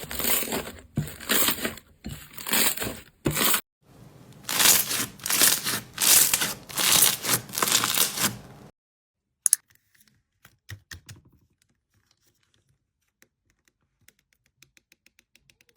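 Slime being squeezed and worked by hand, giving loud crackling, crinkling bursts several times a second. The sound stops abruptly about two thirds of the way through, after which there are only faint scattered taps and clicks.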